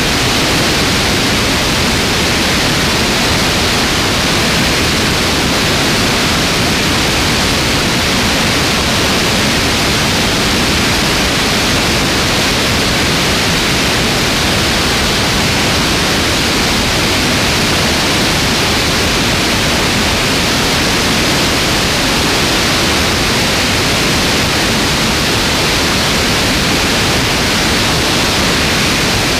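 Steady rush of airflow over a wing-mounted camera on a light aircraft in flight, a loud, even noise that does not change.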